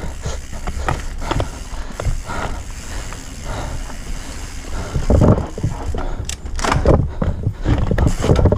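Yeti SB150 full-suspension mountain bike descending a dirt singletrack: tyres running over dirt and roots, with the chain and frame clattering over bumps and heavier knocks about five and seven seconds in. Wind rumbles across the helmet-cam microphone.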